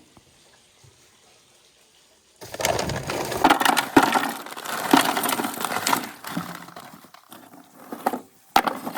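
Lumps of charcoal clattering, knocking and crunching together as they are piled by hand. The clatter starts about two and a half seconds in and stops about seven seconds in, with one more sharp knock near the end.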